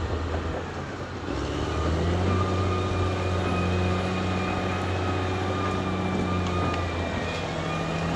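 Caterpillar D6R XL bulldozer's diesel engine working steadily, with a steady high whine over it. The engine note dips briefly about a second in, then comes back louder as it takes up load.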